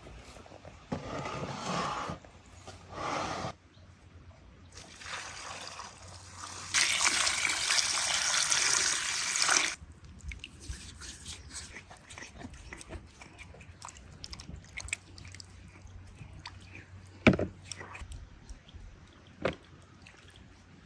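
Water pouring and splashing in several short bursts, then one loud pour lasting about three seconds. After it come scattered light clicks, with a sharp knock near the end.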